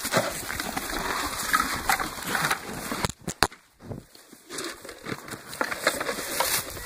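Goats crowding right against the microphone: fur brushing and rustling noise with scattered clicks and knocks, briefly quieter about three seconds in.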